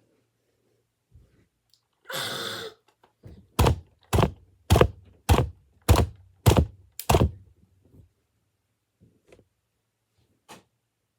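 A brief breathy rush of noise, then seven evenly spaced heavy thuds, about one every 0.6 seconds.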